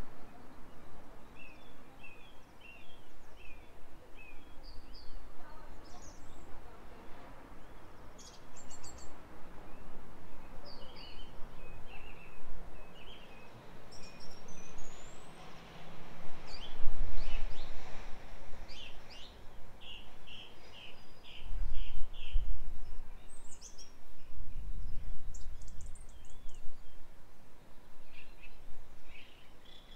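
Small birds chirping and twittering in short calls and trills. Several gusts of wind rumble on the microphone in the second half, louder than the birds.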